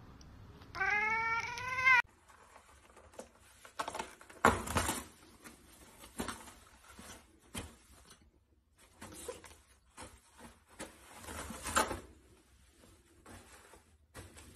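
A cat meows once about a second in, a single rising call lasting about a second. Then a cat paws and pulls at a long strip of unrolled toilet paper, which rustles and crinkles in scattered bursts with light taps and scratches.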